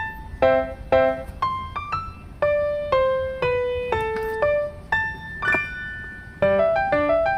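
Background music: a light piano melody of short notes that strike and fade, about two a second, with some chords.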